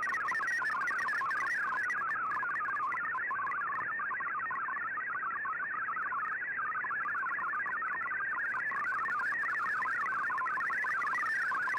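MFSK digital-mode data signal received over shortwave radio: a rapid, continuous warble of short hopping tones over a hiss of background noise.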